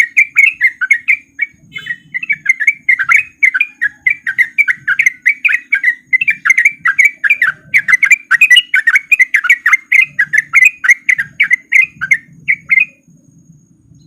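Yellow-vented bulbul (trucukan) singing a fast, continuous chattering song of rapid repeated notes. It breaks off briefly near the start, then carries on until it stops shortly before the end.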